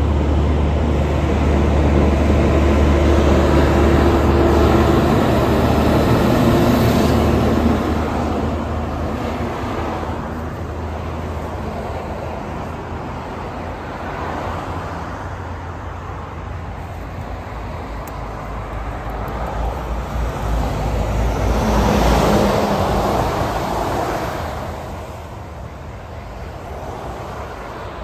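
Heavy vehicles passing on the highway. A truck's deep engine drone is loud for the first seven seconds or so, then fades away. A second vehicle's tyre and engine noise then swells and passes about three quarters of the way in.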